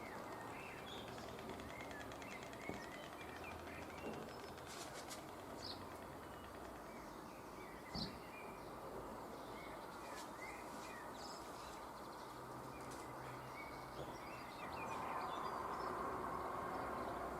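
Small birds chirping in many short, high calls over a steady background hiss. A single sharp knock comes about eight seconds in, and the background noise grows louder near the end.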